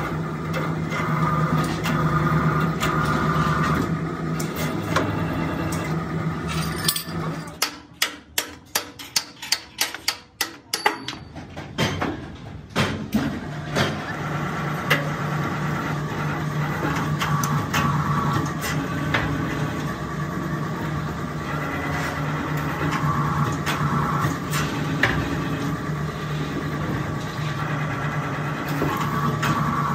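Hydraulic press pushing a truck chassis rail straight: its power unit runs with a steady drone. The drone cuts out about seven seconds in, a quick series of about ten sharp knocks follows, and the drone starts again around thirteen seconds and runs on.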